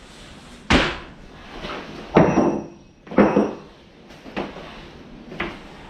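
A ratchet strap being thrown over a truck and hooked on: a sharp knock, then a few metallic clanks and knocks of the strap's metal hook and ratchet against the truck.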